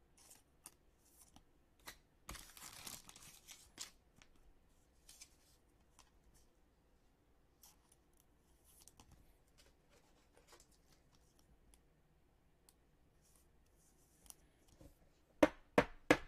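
Trading cards being slid into plastic card sleeves, heard as quiet plastic rustling and small clicks. The rustle is longest about two to four seconds in, and a few sharp taps near the end are the loudest sounds.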